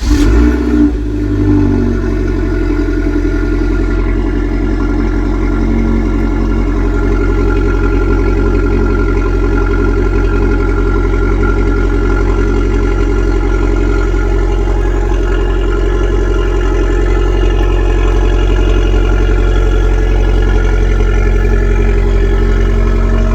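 Abarth 595's 1.4 turbocharged four-cylinder on its stock exhaust, just started. It runs a little high and uneven for the first second or two, then settles into a steady idle.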